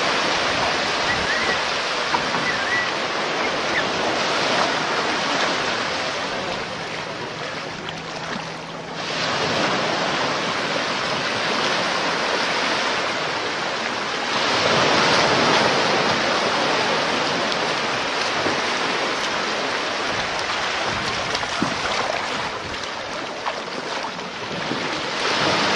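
Surf breaking and washing up a sand beach, a steady rush that swells and fades, dipping briefly a third of the way in and surging louder just after the middle.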